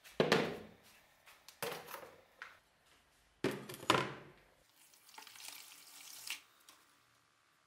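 A plastic tub knocking down hollowly on a wooden workbench, then the steel axe head set into it with a clatter, followed by about two seconds of liquid rust remover being poured in and splashing over the blade.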